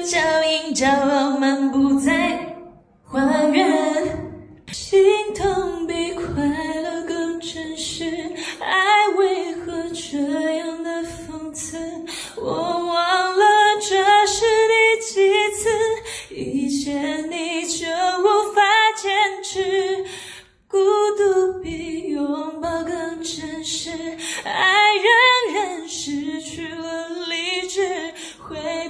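A woman singing a pop melody into a handheld microphone in long phrases, with two short pauses between lines. No accompaniment stands out under the voice.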